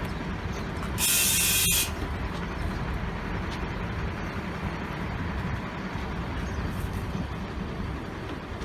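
Hino S'elega coach bus idling with a steady low rumble, and a loud hiss of compressed air let out for just under a second about a second in.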